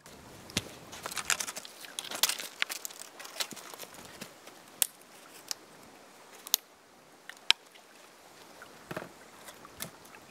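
Dry firewood sticks and branches being handled and broken: irregular crackling and clattering of wood, with three sharp snaps in the second half.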